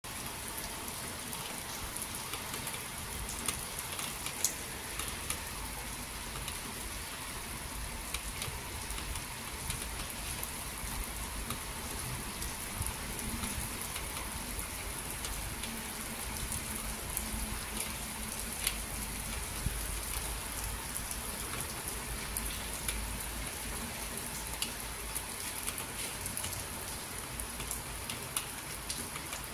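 Steady rain falling on wet asphalt paving, an even hiss with scattered sharper ticks of individual drops.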